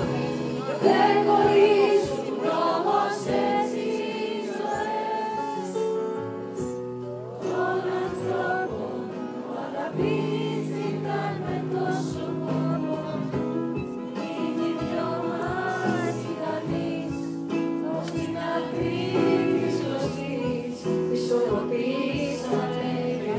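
Live band music with singing, heard from among the audience at a concert.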